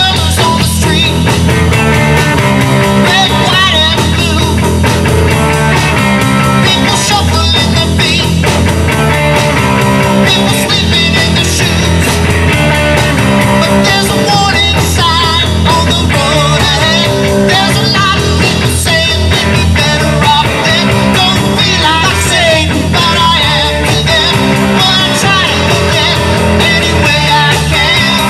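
Live rock trio of electric guitar, bass guitar and drum kit playing loudly, with the band going full on throughout.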